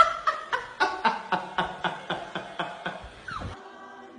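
Rhythmic laughter, about four "ha" pulses a second, fading away over a few seconds and ending in a short falling glide.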